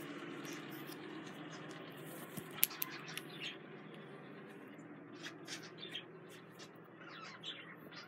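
Pet budgerigars chirping softly in short, high calls, scattered at first and more frequent in the second half, over a faint steady background hiss.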